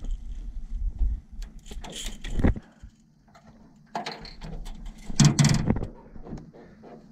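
Irregular knocks, clicks and rattles of a small catfish being swung aboard an aluminum jon boat and dropped onto the deck while rod and tackle are handled, with two louder clatters about two and a half and five seconds in.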